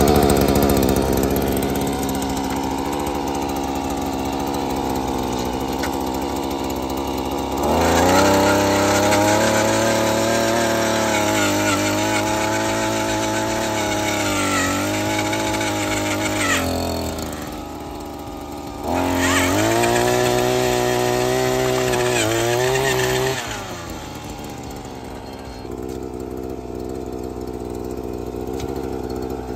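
Predator gas-powered earth auger's small two-stroke engine idling, then revved up under load twice as the auger bores into the soil: once for about eight seconds, and again for about four seconds a little later. It drops back to a lower idle between the two and near the end.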